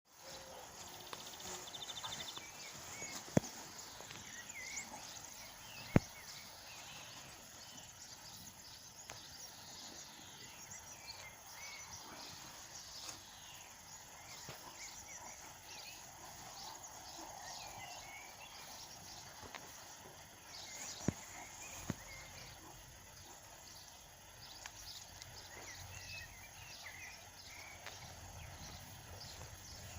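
Outdoor ambience: many short bird chirps over a faint steady hiss, broken by a few sharp knocks.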